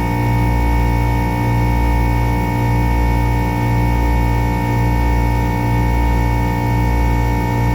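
Background music with held notes over a steady low beat, about one beat a second.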